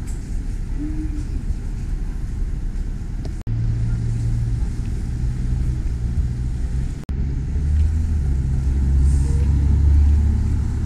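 Street traffic: motor vehicle engines running with a steady low hum, growing louder for a few seconds near the end as a vehicle draws close.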